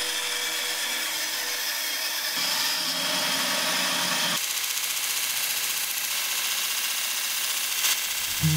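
Bandsaw running and cutting through a laminated hardwood bow riser, the sound changing abruptly about four seconds in; near the end a belt sander grinding the riser takes over.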